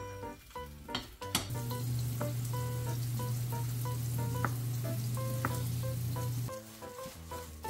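Rolled egg omelette sizzling in an oiled frying pan, with a few knocks near the start, under soft background music.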